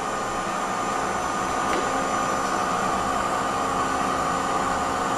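1983 Matsuura MC-760-V2 CNC vertical machining center running, a steady mechanical hum with a high whine held on one pitch.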